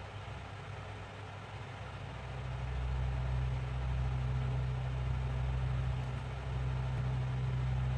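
Steady low droning hum, growing louder about two and a half seconds in.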